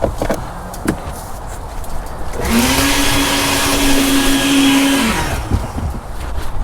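A handheld electric power tool's motor spins up, runs at a steady pitch with a hiss for about three seconds, then winds down. Light knocks and taps come before and after it.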